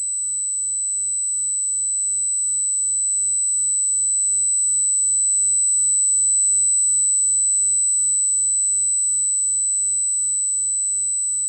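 Synthesized electronic tone of a space-style sound effect: a steady, high-pitched whine with a faint low hum beneath, swelling slowly louder toward the middle and then easing off.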